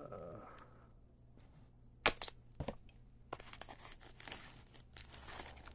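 Packaging being torn and opened by hand, with paper or plastic tearing, crinkling and sharp crackles; the loudest crack comes about two seconds in.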